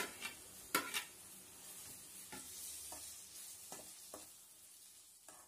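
Chopped onion, tomato and green chilli sizzling faintly in oil in a metal kadai while a spoon stirs them. A few sharp clicks of the spoon against the pan stand out over the soft frying hiss.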